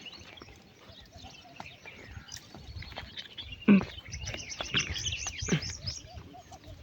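Small birds chirping busily, with one short loud sound a little past halfway through.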